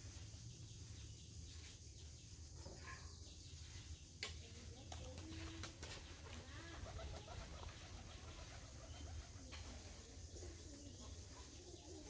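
Domestic pigeons cooing faintly while feeding on grain, with one sharp click about four seconds in, over a low steady hum.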